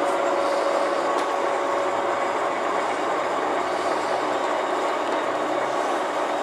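TV-4 "Shkolnik" school lathe running steadily, its motor and gearing humming with a steady whine, while a drill held in the tailstock bores into the spinning steel workpiece.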